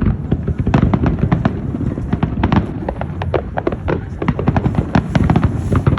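Fireworks display: a rapid, continuous barrage of sharp cracks and bangs, several a second, over a deep rumble of bursting shells.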